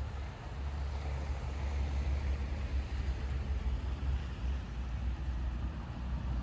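Steady low rumble of wind on the microphone, with the faint running noise of an approaching tram that grows a little louder in the first couple of seconds.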